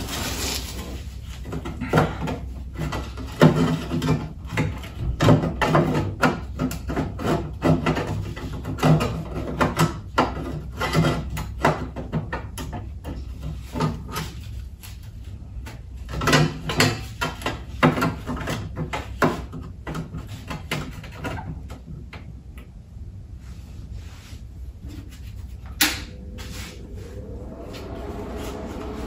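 Metalwork on a VW Golf Mk4's sill panel: irregular sharp knocks, clatter and crackles, in clusters over the first two-thirds and sparse afterwards, over a low steady hum. A single sharp click comes near the end, followed by a steady whining tone.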